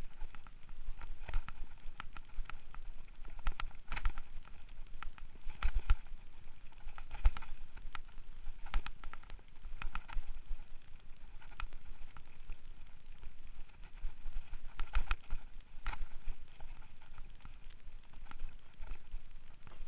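Mountain bike rattling over a rough dirt singletrack: an irregular stream of clattering knocks and clicks from the bike and the rider-mounted GoPro as the wheels hit bumps.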